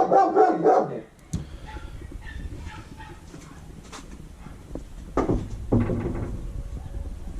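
Dogs barking: a loud burst of barks right at the start and another about five seconds in.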